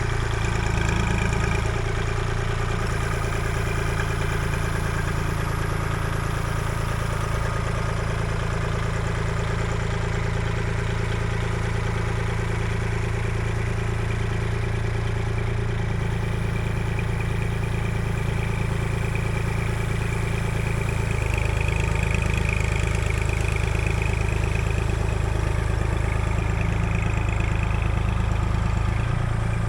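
Kubota L2501 compact tractor's three-cylinder diesel engine running steadily, getting a little louder about two-thirds of the way through.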